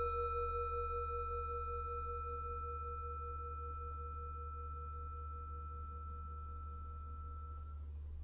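Tibetan singing bowl ringing on after a strike, its tones slowly fading, the lowest one pulsing in a steady wah-wah. A higher overtone dies away near the end, and a steady low hum lies underneath.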